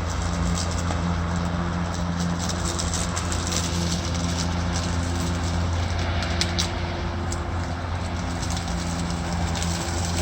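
Ryobi 40-volt brushless battery lawn mower running steadily while cutting grass: a steady electric-motor hum under a hiss of blade and grass noise, with a few sharp ticks about two-thirds of the way through.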